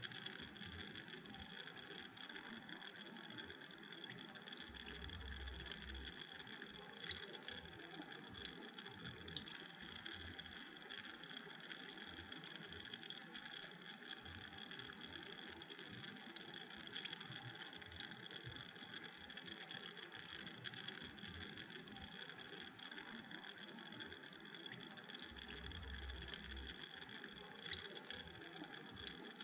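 Carbonated drink fizzing: a steady crackle of countless tiny bubbles popping at the surface.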